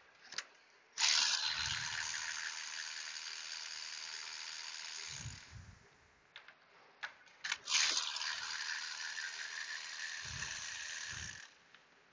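Two long hissing blasts of about four seconds each, the first starting about a second in and the second near the middle; each starts abruptly and tails off slowly, with short clicks just before it.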